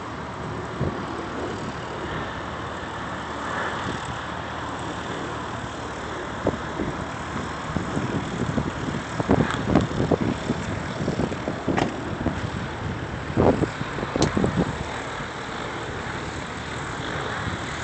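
Outdoor noise with no clear engine note, broken by irregular gusts of wind rumbling on the microphone through the middle stretch.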